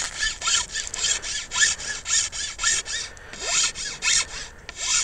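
Metal file rasping back and forth over the leaf bumps at the nodes of a Japanese arrow cane dart shaft, quick even strokes about four a second, pausing briefly twice. A few strokes give a short squeak.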